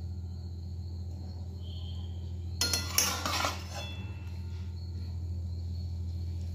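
Flat metal spatula scraping and clinking against a metal kadai while stirring cooked chopped banana flower, potatoes and chickpeas, in a cluster of scrapes lasting about a second, starting about two and a half seconds in, over a steady low hum.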